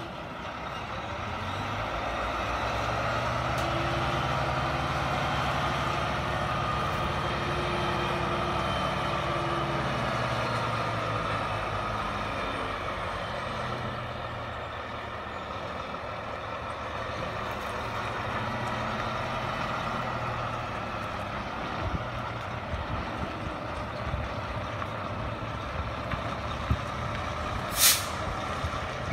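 Truck engine running steadily as the truck works through the course, growing louder over the first few seconds and easing off around the middle. A short, sharp hiss near the end is typical of an air brake.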